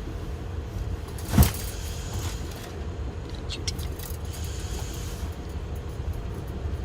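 Steady low rumble of a moving vehicle heard from inside its cabin, with one sharp knock about a second and a half in and a few faint clicks around halfway.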